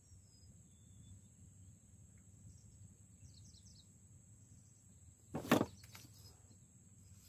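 Quiet riverside background with faint bird chirps. About five seconds in comes one short, loud knock and swish as a fishing rod is snatched up from the boat to strike.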